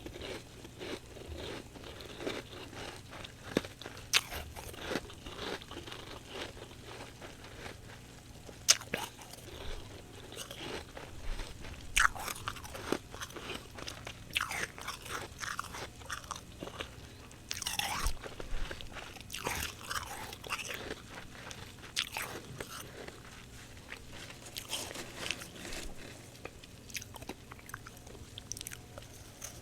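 Fresh humidifier frost being bitten and chewed, with irregular sharp crunches, some loud, some soft.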